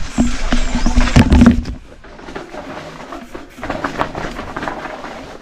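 Mountain bike tyres on a rough dirt trail, with the bike rattling over the ground: heavy knocks and clatter for the first two seconds, then a quieter, steady rattle.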